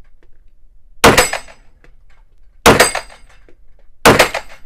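Three pistol shots from a 9 mm Canik TP9 SFX Mete, about a second and a half apart. Each is a sharp crack followed by a short echo off the walls of an indoor range.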